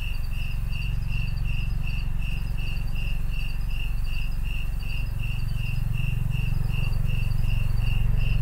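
A cricket chirping steadily, about three even chirps a second, over a low rumble from a passing helicopter that grows louder toward the end.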